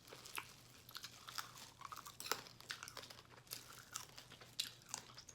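Close-up eating sounds: a person chewing and crunching food, with irregular short crisp clicks and crackles several times a second.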